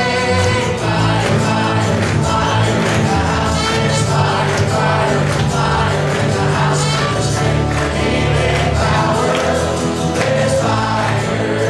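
Live church worship music: a band with electric guitars and drums playing while singers and the congregation sing along together.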